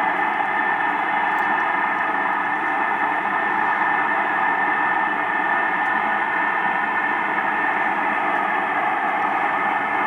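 A steady, unchanging rushing drone with faint held tones in it, which the uploader takes for a strange noise coming from the sky.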